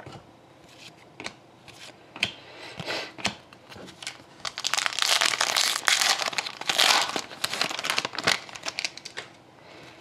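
Foil wrapper of a 2012-13 Upper Deck SP Authentic hockey card pack crinkling loudly as it is torn open and pulled off the cards, from a little before halfway to about eight seconds in. Light clicks of cardboard cards being handled come before and after it.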